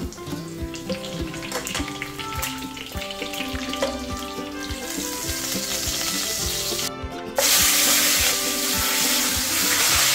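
Pork chops sizzling as they fry in hot oil in a pan. About seven seconds in, the sizzle turns suddenly much louder, with raw chops just laid in the pan. Background music with a beat plays underneath.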